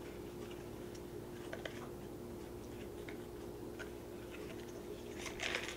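Quiet room with a steady low hum and faint scattered clicks: the soft mouth sounds of a child chewing a jelly bean. A short rustle near the end.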